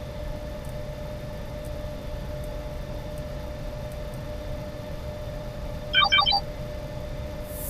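Steady low electronic hum with a faint constant tone. About six seconds in, a quick burst of three short electronic beeps. A whooshing sweep starts right at the end.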